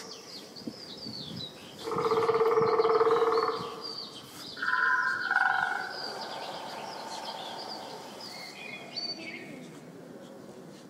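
Small birds chirping and twittering in a forest soundscape. About two seconds in, a loud steady held tone with several pitches sounds for a second and a half, and a short two-note call, higher then lower, follows a couple of seconds later.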